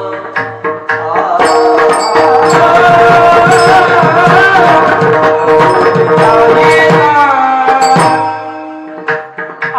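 Marathi kirtan music: a sung devotional melody over a steady drone, accompanied by mridang drum strokes. The melody enters about a second in and drops away near the end, leaving quick drum strokes.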